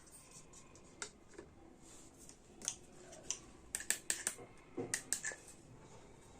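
Small plastic toy kitchen pieces and packaging being handled: a few isolated sharp clicks and taps, then a quick run of them about four to five seconds in.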